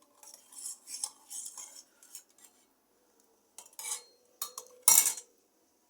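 Cutlery clinking and scraping against kitchenware. A run of light clinks and scrapes comes first, then a pause, then a few sharper knocks, the loudest a little before the end.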